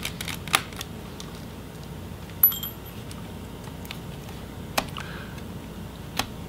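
Scattered small metallic clicks from a Phillips screwdriver and screws being worked out of a laptop's battery. About two and a half seconds in comes one sharper metallic clink with a short ring.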